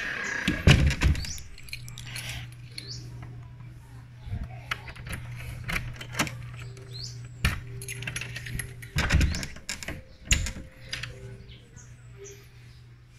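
Metal clicks and knocks of a key working a door's deadbolt and the wooden door being handled and opened, over a steady low hum. Short bird chirps come through now and then.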